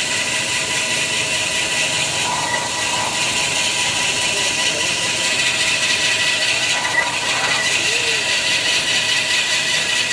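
Semi-automatic band saw cutting machine for kitchen towel paper logs running steadily, a continuous mechanical noise with a steady high whine.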